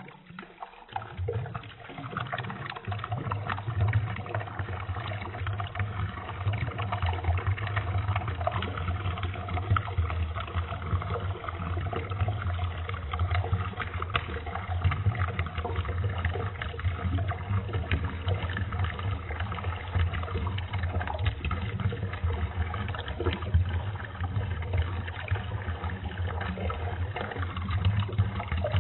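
Peeing sound effect slowed to a quarter of its speed: a continuous stream of liquid splashing, lowered into a deep, dull gurgle, that starts about a second in and runs on steadily.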